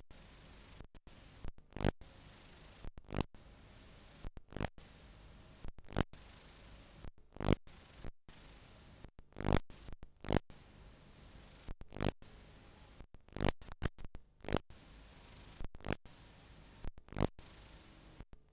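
Videotape playback noise: a steady hiss broken by irregular crackling pops, often in pairs about every second, with short dropouts between them.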